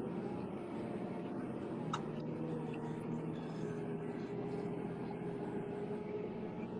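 Vehicle engine running steadily: a continuous drone whose pitch sags slightly and recovers, with one sharp click about two seconds in.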